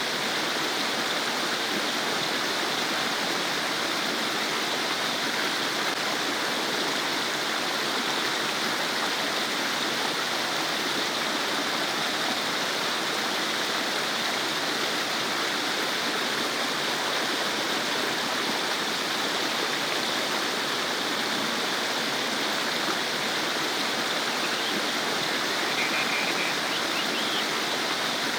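Small stream babbling, a steady rush of running water, with a few faint high chirps near the end.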